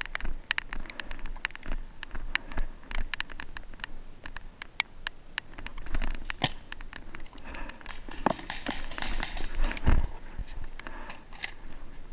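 A paintball player running on grass with his gear: an irregular run of footfalls, clicks and knocks, with a heavier thump about ten seconds in.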